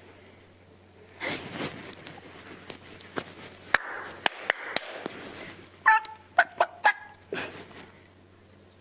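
Quiet body and mouth sounds: a few sharp clicks near the middle, then a quick run of short, squeaky pitched blips a little after six seconds in.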